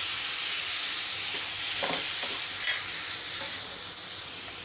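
Water sizzling in a hot oiled pan of spiced raw-mango pieces, the hiss slowly dying away as the water cools the pan. A wooden spatula stirs through it, with two faint knocks against the pan a little after the middle.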